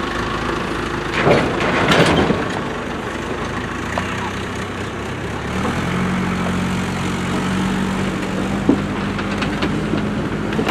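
Diesel engine of a yard tractor running as it tows a circus trailer past, with two short clatters about one and two seconds in. About halfway through, the engine note settles into a steady, slightly higher hum.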